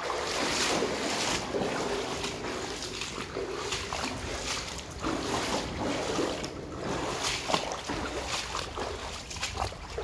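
Small woodland brook running and burbling in an uneven, fluctuating rush, with some wind rumble on the microphone.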